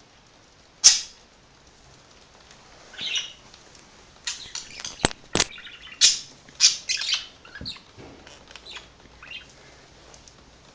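Pet budgerigars chirping in short, scattered high calls, busiest in the middle, with two sharp clicks a little after halfway.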